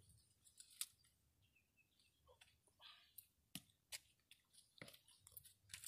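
Near silence, broken by about a dozen faint, sharp clicks and scuffs scattered irregularly through it.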